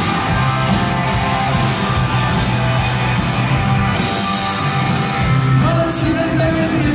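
Live rock band played through a concert PA: electric guitar, bass and drums, with a beat about every 0.8 s. A singing voice comes in near the end.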